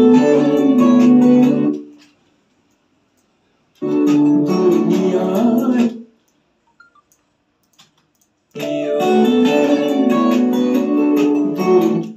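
Guitar-led song music played back in three stretches of about two to three seconds each, stopping abruptly and starting again after a silence, the start-stop playback of a track being edited.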